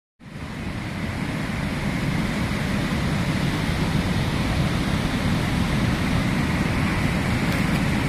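Large waterfall rushing steadily: a constant, even roar of falling white water, heaviest in the low end.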